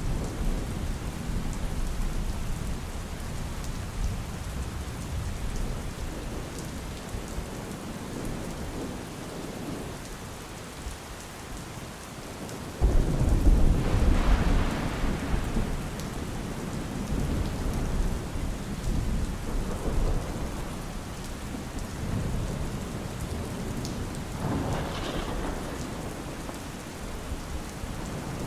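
Steady rain falling, with thunder: a sudden loud low rumble about halfway through that rolls away over a few seconds, and a softer rumble near the end.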